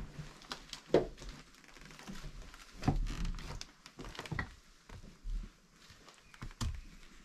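Footsteps through a room, with scattered light knocks and rustles.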